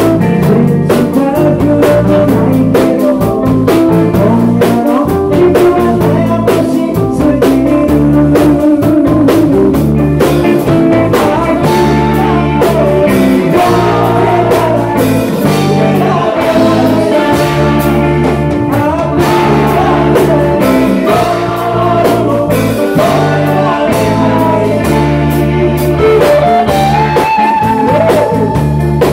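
Live rock band playing: a man singing lead over a Rickenbacker electric guitar, electric bass and drum kit.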